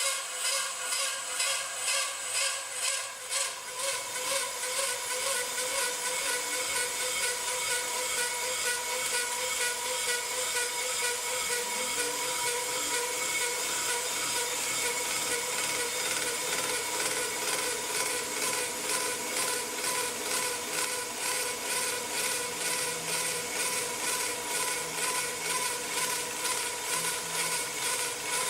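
Pro-Cut on-car brake lathe turning a brake rotor while its blades cut the rotor faces: a steady motor hum with a metallic cutting hiss, pulsing about twice a second with the rotor's turning.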